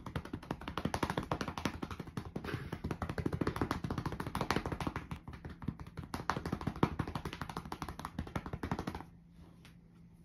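A hand rapidly patting a tabby cat's rump, a fast, continuous run of pats that stops about nine seconds in.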